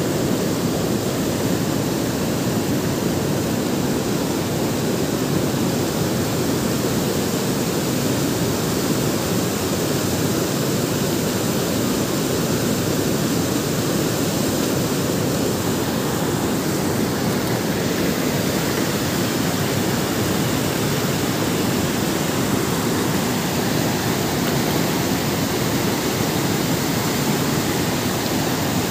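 Mountain stream rushing over and between rocks: a steady, unbroken rush of water.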